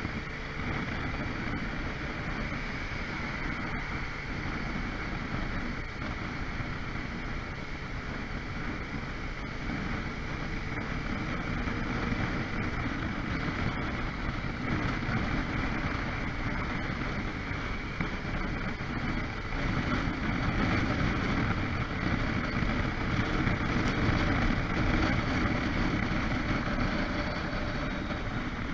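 Riding motorcycle heard from the bike itself: steady wind noise on the microphone over the engine and road noise. It gets louder about two-thirds of the way through, then eases slightly near the end.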